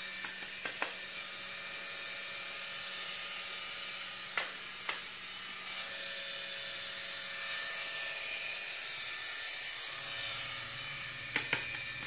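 Handheld hair dryer running steadily: an even hiss with a low hum underneath, and a few short taps.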